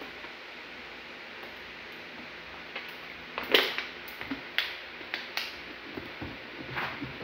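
Plastic water bottle being handled. A sharp crinkle comes about three and a half seconds in, then several lighter clicks and crackles as the cap is screwed back on.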